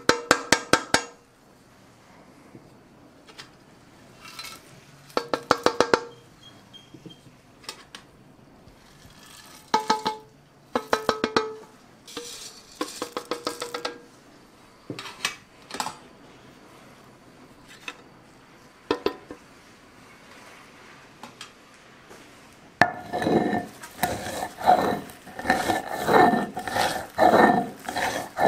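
Stainless-steel trays tapped repeatedly against a stone grinding slab, in short clusters of quick metallic taps, knocking the last of the powder and spices out onto the cacao paste. In the last five seconds or so, a stone hand roller is worked back and forth over the slab, grinding the chocolate paste in repeated scraping strokes.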